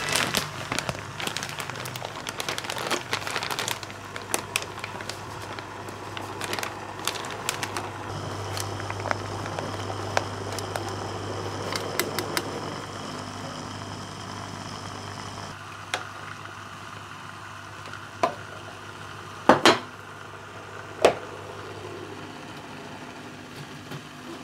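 Plastic freezer bag crinkling and crackling as it is pressed down and sealed in a sous-vide water bath, over the steady low hum of the running BONIQ immersion circulator. Later come a few sharp knocks, the loudest two close together, as things are set in place on the container.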